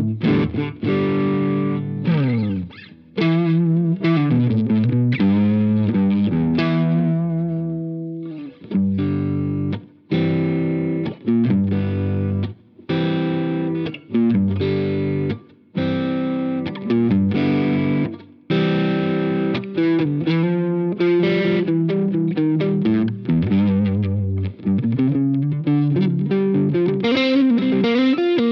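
Electric guitar played through a Jeds Peds Wasteman overdrive pedal, a boosted Tube Screamer-style drive: distorted chords and riffs in short phrases with brief gaps between them, opening with a sliding note that falls in pitch.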